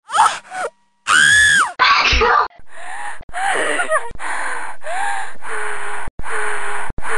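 A woman's high voice making exaggerated, sneeze-like gasps and squealing cries. About a second in comes one long squeal that rises and falls, then a run of short breathy cries that cut off and restart abruptly several times.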